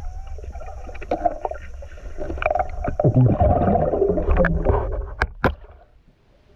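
Muffled underwater water noise picked up by an action camera's microphone underwater: a low rumble with sloshing and bubbling as the diver moves, two sharp clicks about five seconds in, then it falls away to a faint hiss.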